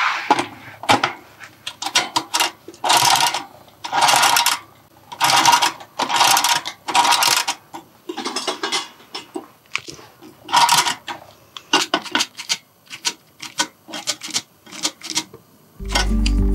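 An irregular series of short rustling and scraping noises, roughly one a second, with lighter clicks between them. Music with a steady beat starts near the end.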